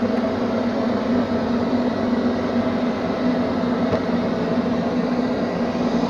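Neato XV-21 robot vacuum running: a steady motor and brush drone with a constant hum.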